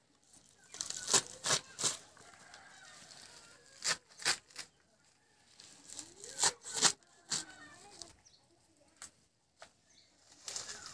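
Mustard greens cut by hand with a small knife: crisp, sharp snaps as the blade goes through the leafy stems, in quick groups of two or three every couple of seconds.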